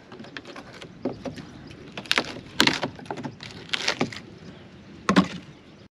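Hand tool knocking on the old wooden hull planks of a double-diagonal planked boat: about six sharp, irregularly spaced blows as the planks are worked loose.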